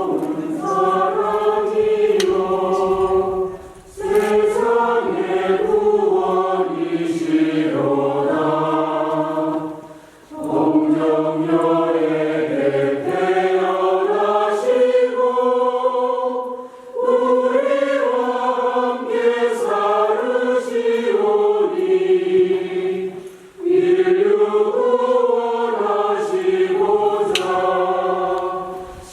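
Church choir singing a hymn in long phrases of about six seconds, each followed by a short breath pause.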